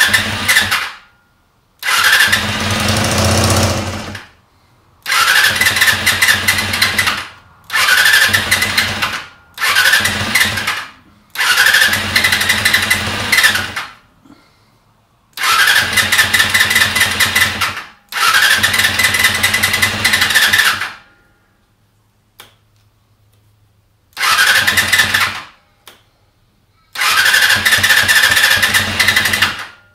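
Honda CBR250R MC19's 250 cc inline-four being cranked on the electric starter in about nine bursts of one to three seconds each, with short pauses between. The engine tries to fire but does not catch.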